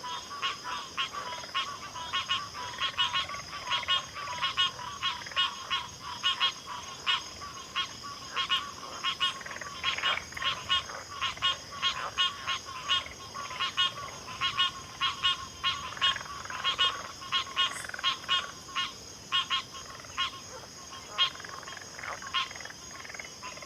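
Chorus of frogs calling from a backwater: many short, sharp calls repeated several times a second and overlapping, over a steady high-pitched hum.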